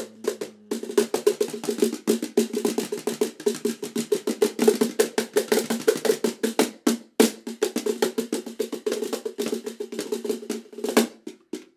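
Small box cajon played with the hands: a fast, continuous run of finger strokes over a ringing, hollow box tone, with a few louder single slaps near the end.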